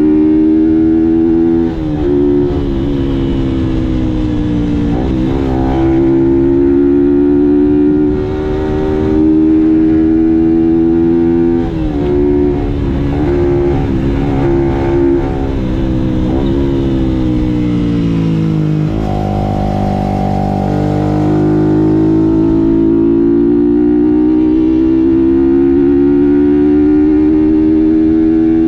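Sport motorcycle engine heard from the rider's seat while riding hard, its pitch climbing and then dropping at each of several gear changes. Around two-thirds of the way through the note falls low and then jumps back up, and over the last few seconds it climbs steadily.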